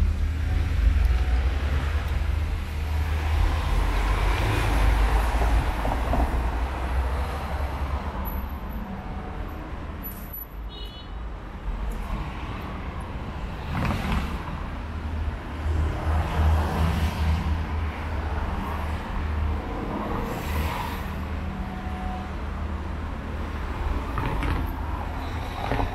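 Road traffic passing one vehicle after another, over a constant low rumble, swelling several times as vehicles go by.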